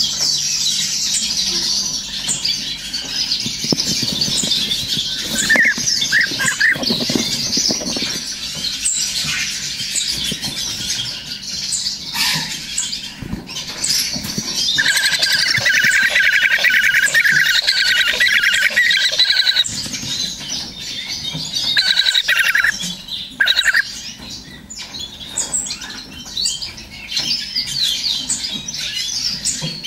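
European bee-eater nestlings giving their food-begging calls: a constant chorus of thin, high cheeps, with a louder buzzing trill from about halfway through for several seconds and again briefly later.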